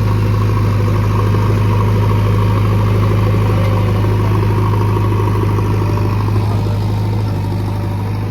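JCB excavator's diesel engine running steadily with a low, even drone, easing slightly in loudness near the end.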